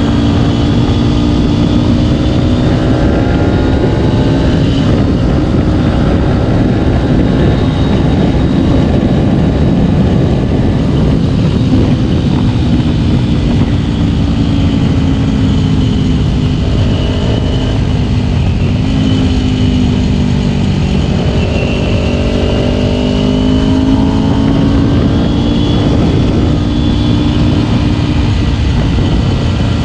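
Kawasaki Ninja 250's parallel-twin engine pulling steadily on the move, under heavy wind rush on the microphone. The engine pitch rises and falls gently, with a brief drop a little past the middle.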